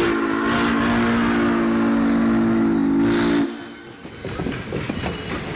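Valley Railroad No. 40's Texas & Pacific three-chime steam whistle sounding a long chord that cuts off about three and a half seconds in. After it, the passing coaches' wheels rumble and click on the rails.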